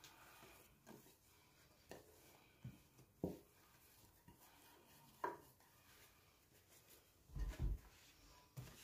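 Quiet kitchen handling sounds as a bowl of risen yeast dough is turned out onto a floured granite countertop: a few light knocks and scrapes, then a dull thump about seven and a half seconds in.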